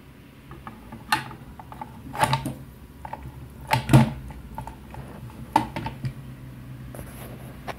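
Metal clicks and clacks from handling a full-metal replica M4-style rifle as its magazine is fitted into the magazine well, a handful of separate knocks with the loudest about four seconds in.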